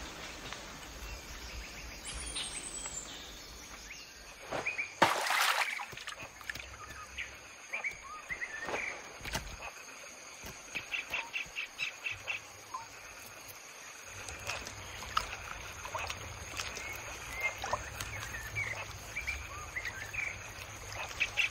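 Forest ambience: assorted birds chirping and calling, including a quick run of about six short notes near the middle and again at the end, over a thin steady high tone. A louder rushing burst comes about five seconds in.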